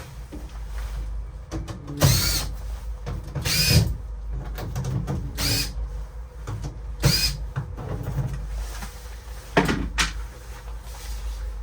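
Cordless drill-driver run in several short bursts, its motor whine rising and falling each time, undoing the screws of a door panel.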